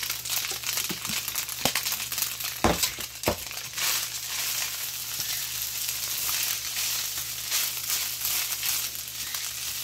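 Crab, onion and garlic mixture sizzling in butter in a frying pan while a slotted spatula stirs breadcrumbs through it, scraping and pushing against the pan. Two sharp knocks come about three seconds in, then steady stirring strokes over the sizzle.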